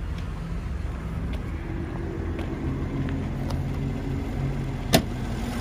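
Steady low rumble of an idling car engine. About five seconds in there is one sharp click, the hood's safety latch being released. Faint footsteps ring out earlier.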